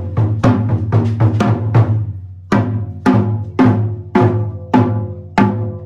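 Japanese taiko drums struck hard: a quick run of strokes, then after a short pause six single heavy strikes about 0.6 s apart, each ringing on, the last one dying away.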